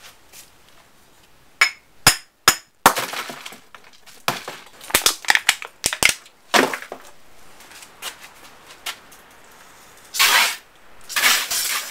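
A hammer taps a glass light bulb three times and then smashes it, followed by clinking and crunching as the broken glass pieces are handled and dropped into a cardboard box. Near the end an aerosol spray can hisses in two short bursts.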